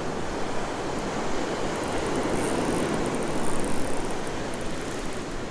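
Ocean surf washing up a beach, a steady hiss of breaking foam that swells about two seconds in and eases off, with faint, light ticking at times.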